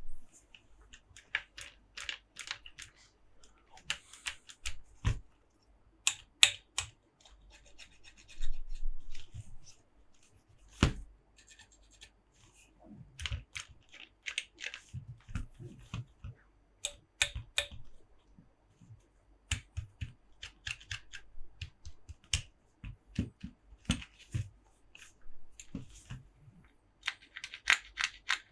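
Close-up handling of plastic Monster Jam toy trucks: irregular taps and clicks with short stretches of scratching and rubbing.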